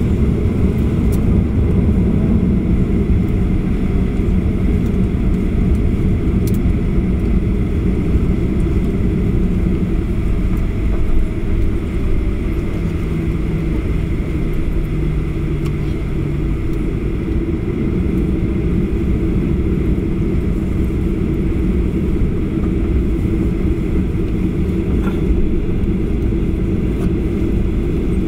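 Cabin noise of a Boeing 737-800 taxiing: a steady low rumble from its CFM56-7B engines at low thrust and the wheels rolling on the taxiway.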